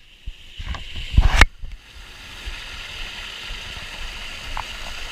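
Water splashing and knocking hard a few times in the first second and a half, then the steady rush of the Virgin River pouring down a small waterfall in the Narrows.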